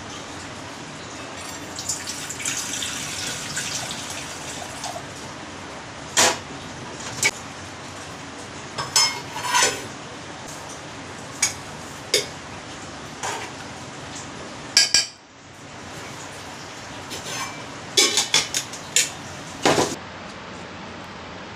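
Stainless steel kitchenware clinking and knocking: a steel pot and canister handled at a gas stove, then a spoon striking a steel bowl several times near the end, over a steady background hiss.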